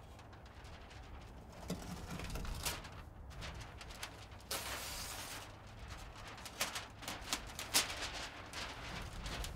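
Black flashing membrane and Tyvek housewrap crackling and rustling as they are handled and pressed onto the wall by hand, with irregular sharp clicks and a short, denser rustle about halfway.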